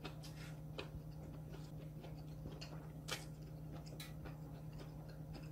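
Faint, scattered mouth clicks and wet smacks of someone chewing a mouthful of hamburger with the mouth closed, over a steady low hum.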